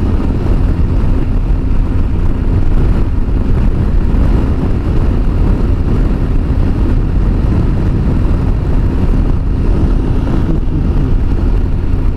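Heavy wind buffeting on a motorcycle rider's helmet microphone at interstate speed: a steady, loud low rumble, with the Yamaha Super Ténéré's engine and road noise underneath.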